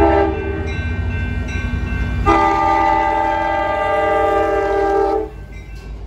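Diesel passenger locomotive's multi-tone air horn sounding for a grade crossing: a short blast right at the start, then one long blast from about two seconds in until about five seconds, over the low rumble of the passing train.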